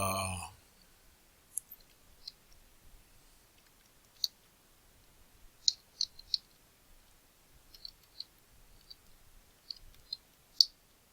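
Scattered, short, sharp clicks of a computer's mouse and keys, about fifteen at irregular intervals, some coming in quick pairs or triplets.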